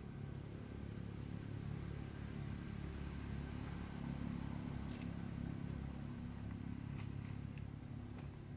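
A steady low engine hum, like a motor vehicle running nearby, with a few faint short high sounds over it.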